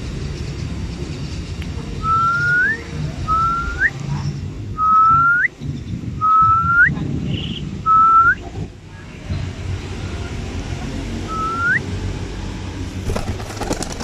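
Six short whistled notes, each held level and then sweeping sharply up at the end, spaced about a second apart with a longer gap before the last. Near the end comes a brief flurry of a pigeon's wing flaps as it takes off.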